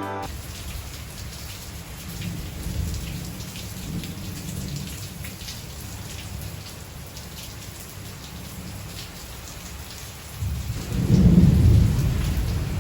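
Steady rain falling, with a low rumble of thunder that swells loudly about ten seconds in.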